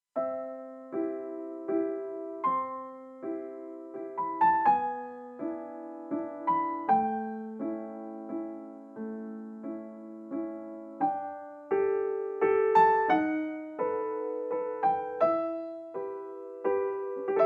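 Background music: a gentle solo piano piece of soft chords and melody notes.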